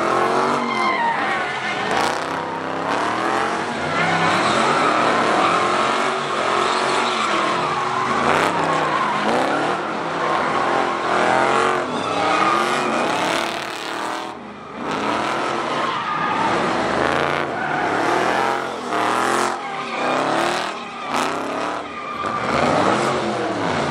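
A car doing donuts: its engine revs up and down over and over while the tires squeal and skid on the asphalt.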